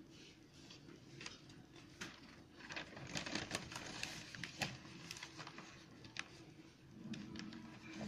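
Faint scattered clicks and light rustling, busiest in the middle, with a low steady hum coming in near the end.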